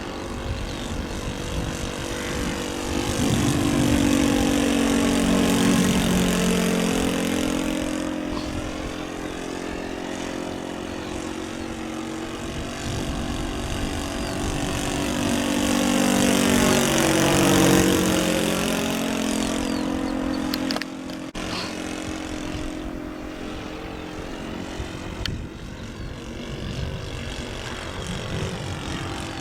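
Engine of a radio-controlled model de Havilland DH.60 Gipsy Moth biplane in flight. It passes by twice, growing louder and then dropping in pitch as it goes past.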